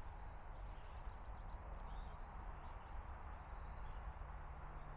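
Quiet outdoor background: a low steady rumble with a few faint bird chirps.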